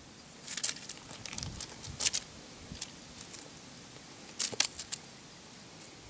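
Brief crackling rustles in a few short clusters: near the start, at about two seconds, and again around four and a half seconds. The kitten tussles with a feather teaser toy on dry, leaf-strewn ground.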